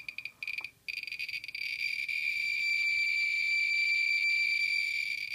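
Geiger counter's beeper chirping for each detected count through its pancake probe, the high chirps fast and irregular, then running together into one continuous high beep about a second in as the count rate climbs over a radioactive lantern mantle. Near the end it breaks back into separate chirps.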